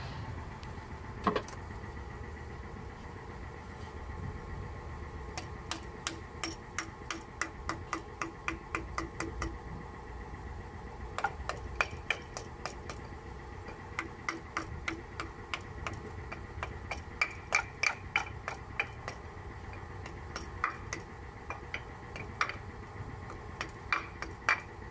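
Small hammer tapping a new crankshaft front oil seal into the front cover of an Isuzu 4HF1 diesel engine: runs of quick, light metallic taps, about three to four a second, with short pauses between runs.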